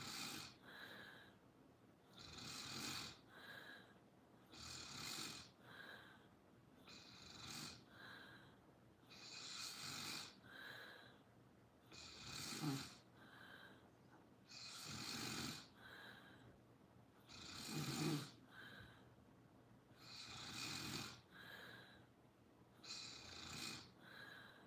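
Slow, even snoring, about one breath every two and a half seconds. Each breath is a rush of air, and two of them, around the middle and later on, carry a louder, deeper rattle.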